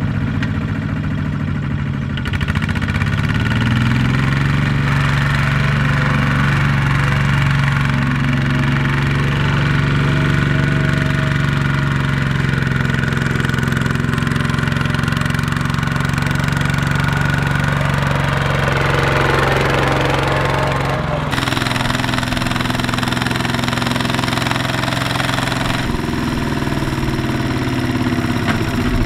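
Single-cylinder diesel engine of a Kubota two-wheel walking tractor running under load as it hauls a trailer of rice sacks through mud. It picks up speed a few seconds in and then holds steady. About twenty seconds in the sound changes abruptly to a second, similar tractor engine.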